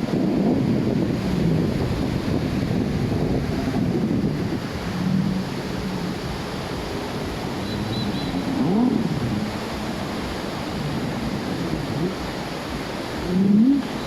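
Sea surf washing on a beach, a steady low rumble with wind buffeting the microphone. A few short rising tones sound over it, the loudest near the end.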